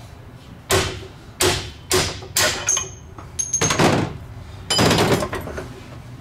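A hammer strikes a curved punch about seven times, roughly two blows a second, to drive needle bearing races out of a dirt bike's linkage dog bone. A short metallic ring follows one blow near the middle.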